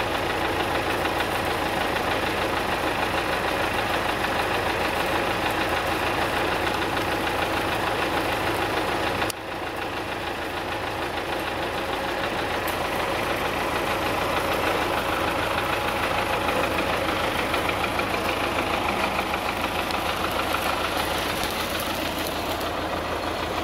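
An engine running steadily at an even idle, with a brief dip about nine seconds in.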